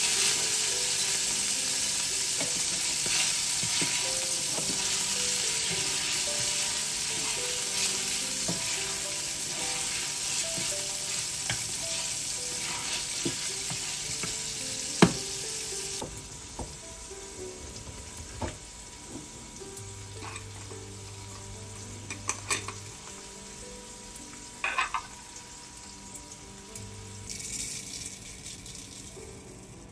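Butter and chopped vegetables sizzling in a nonstick frying pan while a wooden spoon stirs and scrapes them. About halfway through the sizzle drops away suddenly, leaving a few spoon taps and scrapes. Near the end, dry rice patters into the pan.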